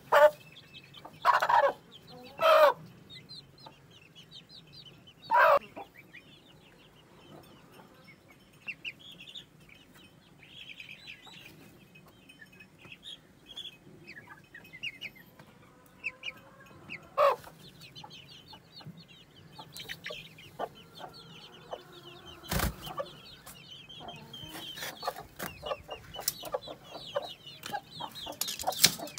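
Young Aseel chickens clucking and peeping, with many small high peeps throughout. Loud short calls come three times in the first six seconds and once more about 17 seconds in, and there is a single sharp knock about 22 seconds in.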